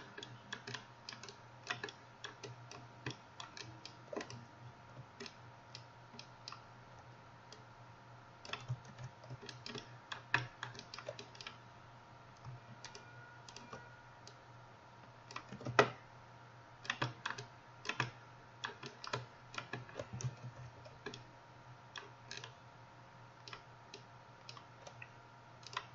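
Irregular clicking of a computer keyboard and mouse, tapped in scattered runs, with one louder click a little past the middle. A low steady hum runs underneath.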